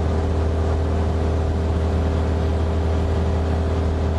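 Light aircraft's piston engine and propeller droning steadily, heard from inside the cabin: a deep, even hum with a constant higher tone over it.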